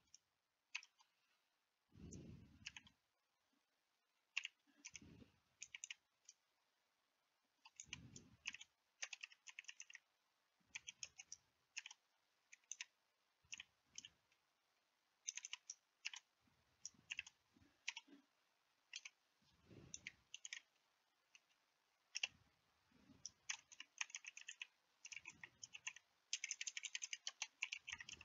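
Faint computer keyboard typing: irregular bursts of quick keystroke clicks, denser near the end, with a few soft low bumps in between.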